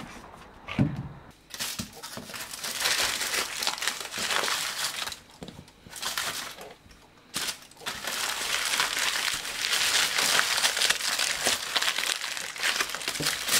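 Dry crinkling and crunching rustle, made of many fine crackles in spells of a second or more, with two short pauses around the middle.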